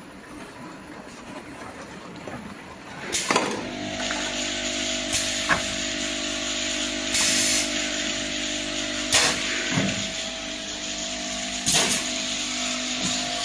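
Automatic bottle filling and capping line starting up about three seconds in with a clatter, then running with a steady motor hum. Short hisses and clicks come back roughly every two seconds.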